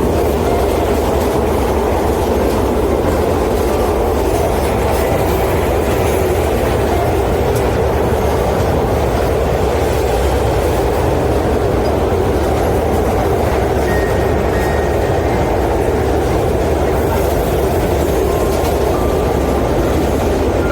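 Train running on the rails: a steady, even rumble.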